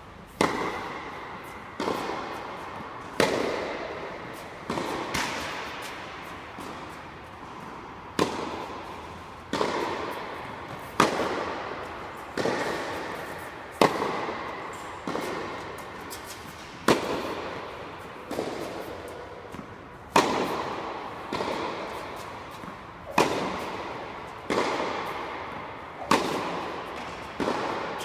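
Tennis rally: sharp racket strikes and ball bounces about every one and a half seconds, each ringing on in the echo of a large indoor tennis hall.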